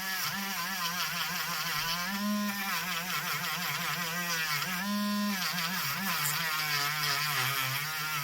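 Small rotary tool fitted with a brass wire brush, whirring as it scrubs the wheels of a model locomotive. Its pitch wobbles and sags each time the brush is pressed on, and rises back to a steady note when it runs free, about two seconds in and again about five seconds in.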